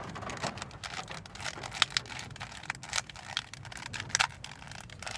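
Rubik's Cube being turned by hand, its plastic layers giving rapid, irregular clicks as they snap round.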